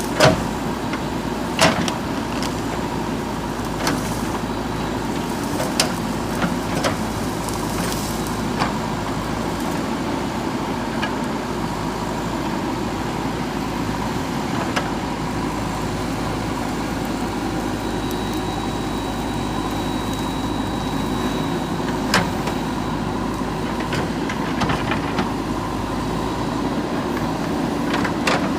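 JCB 3DX backhoe loader's diesel engine running steadily while the machine works, with a few sharp knocks scattered through, loudest about two seconds in and about twenty-two seconds in.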